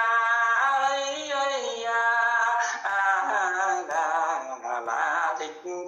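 A man singing a Quan họ folk song unaccompanied over a phone video call: long held notes that waver and slide between pitches, with brief breaths between phrases.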